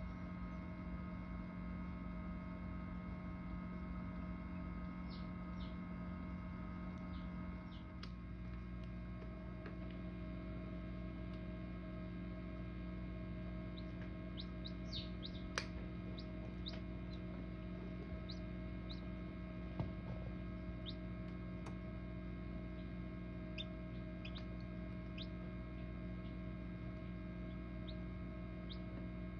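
Steady electrical hum of an egg incubator, with short high peeps from hatching chicks heard again and again, in small clusters. A couple of faint clicks come in between.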